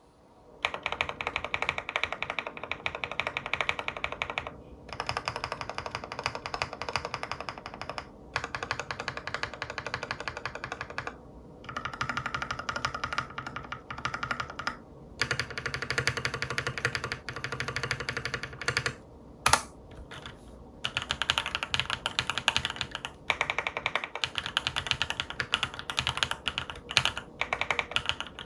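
Fast typing on a Monggeek M3 full-aluminium tenkeyless mechanical keyboard with Akko Cream Yellow Pro linear switches and Akko keycaps. Rapid keystrokes come in runs of a few seconds with short pauses between, and one single louder clack comes about two-thirds of the way through.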